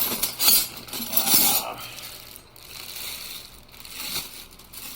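Metal wrenches clinking and rattling against each other as they are handled. The clinks come thick in the first two seconds, then thin out into lighter handling noise.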